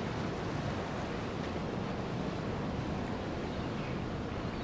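Steady seaside ambience: an even hiss of wind and gently lapping harbour water, with no distinct events.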